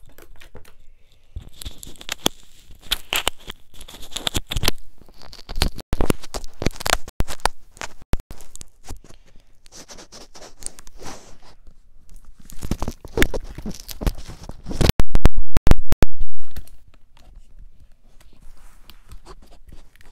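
Irregular crackling, rubbing and scraping close to the microphone, handling noise with many sharp clicks. About fifteen seconds in, a very loud distorted burst lasts over a second.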